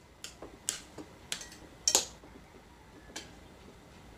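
Cutlery clinking against a ceramic plate: about five sharp, separate clinks spread over three seconds, the loudest about two seconds in.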